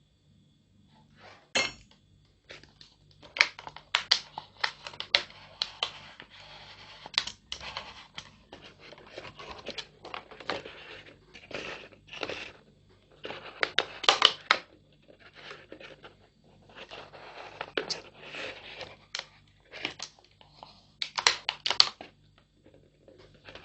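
Thin plastic of a cut soft-drink bottle crinkling and clicking in irregular bursts as the pieces are handled and pushed together.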